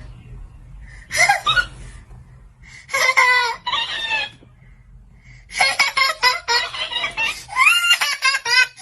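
High-pitched, chipmunk-like voice sounds from a sound-imitating toy, in short squeaky bursts about a second in and around three to four seconds, then a longer, busier run from about five and a half seconds on.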